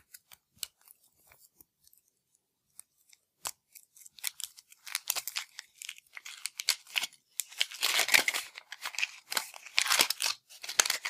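Foil wrapper of a Kinder chocolate bunny being unwrapped by hand: a few sharp crinkles at first, then dense crackling and tearing from about four seconds in.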